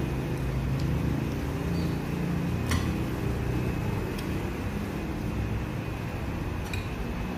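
Steady low background rumble, with a few light clicks and taps as rice and fish are eaten by hand from a plate.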